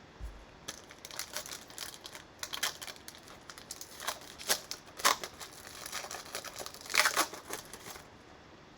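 Cellophane wrapper of a trading card cello pack being torn open and crinkled, an irregular run of crackles and rips, loudest about five and seven seconds in.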